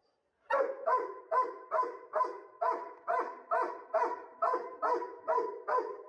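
A dog barking steadily and rhythmically, about two and a half barks a second. The barks start about half a second in.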